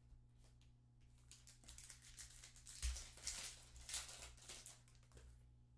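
Foil wrapper of a Topps Chrome trading-card pack crinkling and tearing as it is opened by hand, a faint run of crackles with one soft low bump about three seconds in, over a steady low electrical hum.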